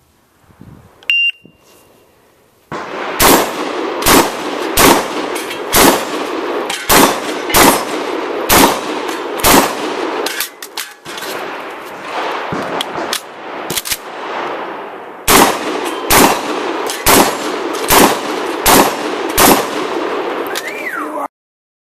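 Rapid semi-automatic fire from an AK-style, box-magazine-fed shotgun. A short electronic beep comes about a second in. Then come eight shots about a second apart, a pause of a few seconds, and six more shots at the same pace.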